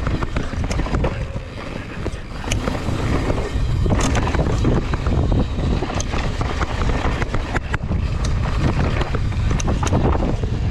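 Mountain bike rolling down a loose dirt trail: wind buffeting the camera microphone over the tyre noise, with scattered sharp clicks and rattles through the descent.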